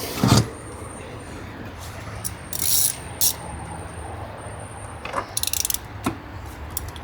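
Ratchet wrench being worked on a freshly threaded fastener during an oil change: a knock just after the start, a few short scraping strokes, then a quick run of pawl clicks about five seconds in.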